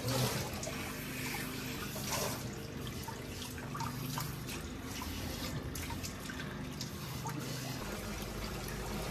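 Water from a pull-down kitchen faucet sprayer running over a puppy's wet, soapy coat and splashing and trickling into a stainless steel sink as the shampoo is rinsed out.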